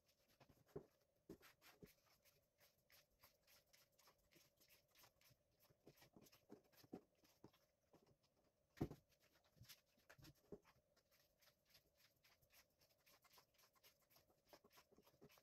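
Faint paper handling: the pages of a paperback sticker book being turned and smoothed by hand, with small scattered crackles and taps and one louder soft knock about nine seconds in.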